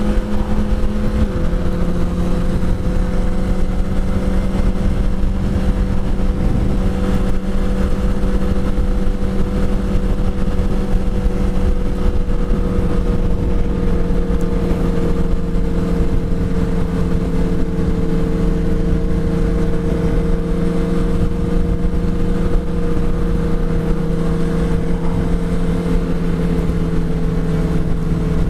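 Yamaha R1 sportbike's inline-four engine running at steady cruising revs, its pitch dropping slightly about a second in and then holding, over a steady low rumble.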